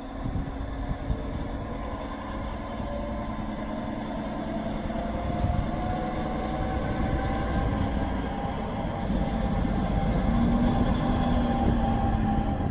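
Diesel shunting locomotive hauling a train of loaded hopper wagons, running under load with a low rumble. A whine in its engine note rises slowly in pitch, and the sound grows steadily louder.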